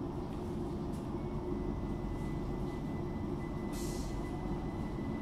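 Bombardier Class 378 electric multiple unit running, heard from inside the carriage with a contact microphone picking up the traction motors: a steady low rumble. A thin steady tone joins about a second in, and there is a brief high hiss near the end.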